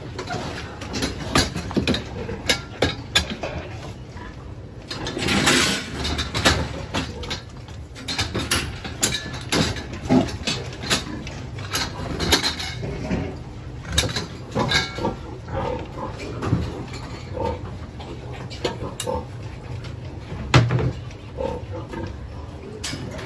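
A pig sneezing amid other pig noises, with frequent short knocks and clatter; a louder noisy burst lasts about a second, starting about five seconds in.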